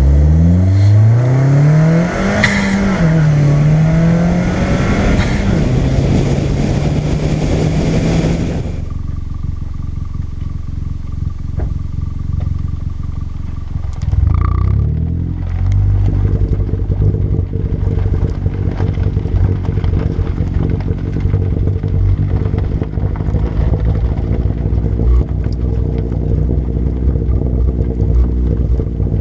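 Exhaust of a 2015 Chevy Sonic RS turbocharged four-cylinder through a ZZP turboback exhaust, accelerating with the pitch climbing through the gears and dipping at each shift, then cutting off about eight seconds in. From about fourteen seconds in it runs as a steady low drone, with a brief rise in pitch at the start.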